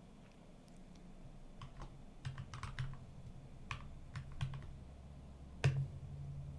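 Typing on a computer keyboard: irregular key clicks starting about a second and a half in, coming in small clusters, with one louder keystroke near the end.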